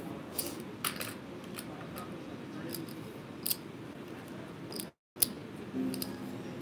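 Casino chips clicking as they are stacked and placed on the felt table, in scattered sharp clicks over a low, steady background murmur. The audio cuts out completely for a moment about five seconds in.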